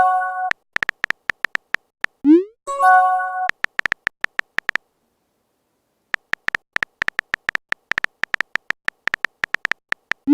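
Electronic typing ticks from a messaging app, repeated rapidly, with message notification sounds: a short rising swoop followed by a chime, just at the start and again about two and a half seconds in. The ticks stop for about a second and a half around the middle, then resume, and another swoop comes at the very end.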